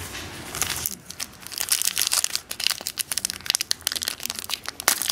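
Shiny foil wrapper of a Contenders football card pack crinkling and tearing as it is handled and opened by hand, with a dense run of sharp crackles from about a second in.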